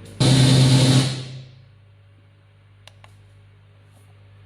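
15-inch line array speaker box playing a short, loud burst of sound with a deep steady tone under it, which stops about a second in and fades out over the next half second. A couple of faint clicks follow in the quiet.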